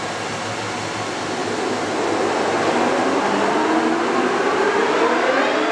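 Leblond Regal 26" x 160" heavy-duty lathe running as its spindle and 21-inch four-jaw chuck spin up. A steady machine hum gets louder about two seconds in, then a whine rises in pitch through the last few seconds.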